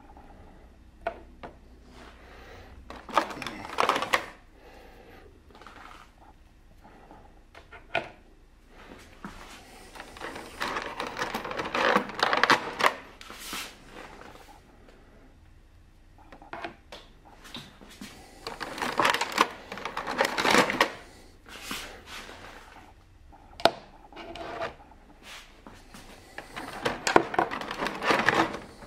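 Small plastic toy figures being pulled out of a clear, thin rigid plastic blister tray: the plastic crackles and clicks in bursts of a few seconds, with single sharp taps as figures are set down on the table and quieter gaps between.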